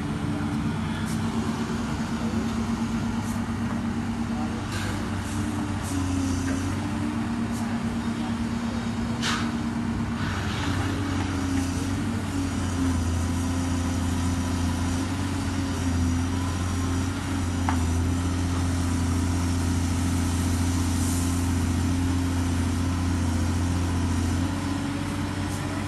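LiuGong 925 long-boom excavator's diesel engine running steadily, its pitch shifting slightly now and then, with a few short knocks midway.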